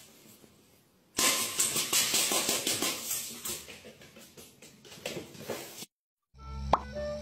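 A loud, noisy rattling hiss full of small clicks. It starts suddenly about a second in, fades over about four seconds and stops abruptly. After a cut, a few steady musical notes follow, with a sharp knock.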